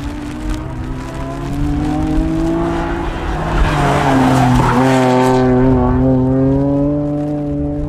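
BMW 130i rally car's straight-six engine held at high revs through a tight turn, its note briefly dipping and then holding steady. From about three to five and a half seconds in, the tyres skid loudly on the asphalt as the car slides around the turn.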